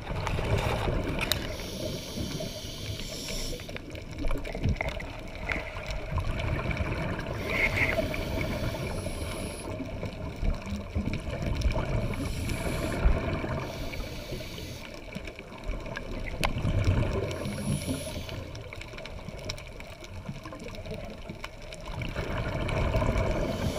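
Muffled underwater water noise picked up by a camera below the surface: a steady low rumble with gurgling that swells every few seconds, and a few faint clicks.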